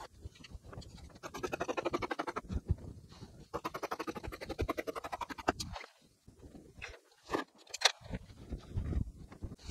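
Scissors cutting through bonded interlining in two long runs of fast, even rasping strokes. Near the end come two sharp knocks, then the rustle of the cut interlining being handled.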